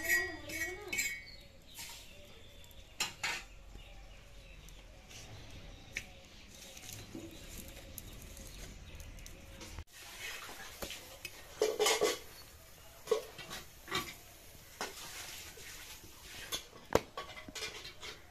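Metal spatula clinking and scraping against an iron tawa while a paratha is turned and pressed on it: scattered sharp knocks, busier in the second half.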